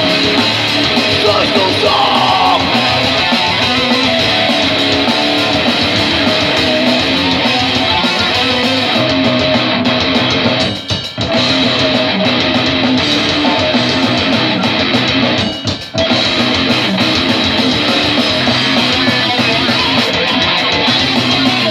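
Live heavy metal band playing loud, dense music on distorted electric guitars, bass and drums. The band stops short for an instant twice, about halfway through and again about three-quarters of the way through.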